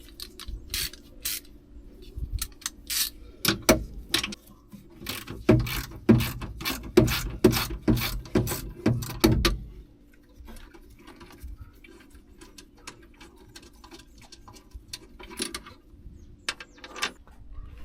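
Socket ratchet wrench clicking as a 13 mm seat bolt is turned, in repeated runs of sharp clicks that are densest about halfway through, then only a few scattered clicks.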